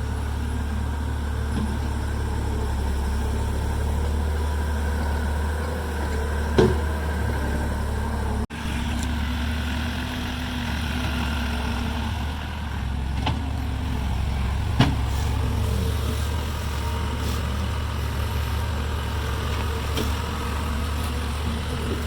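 An engine running steadily with a low hum, with two sharp knocks, one about a third of the way in and one about two-thirds in.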